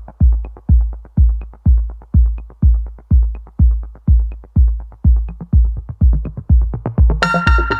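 Electronic music: a deep kick drum beating steadily about twice a second, with synth chords coming in near the end.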